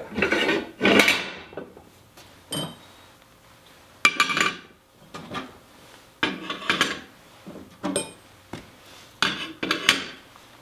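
Steel rocket stove parts clanking and scraping against each other as they are fitted together: a string of separate metal clanks, a few of them with a short ring.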